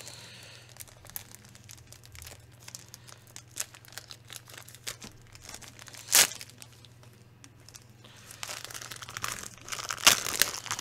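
Crinkling of a thin plastic sleeve holding a LEGO instruction booklet as it is handled and torn open, with one sharp rip about six seconds in. Denser crinkling and paper rustling follow near the end as the booklet is drawn out.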